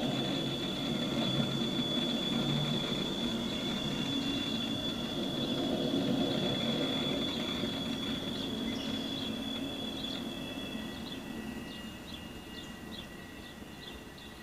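Double-stack container train rolling past, its steel wheels squealing against the rails on the curve in steady high-pitched tones over the low rumble of the cars. In the last few seconds the squeal breaks into quick, short repeated chirps and the sound slowly fades. It is heard through a webcam feed.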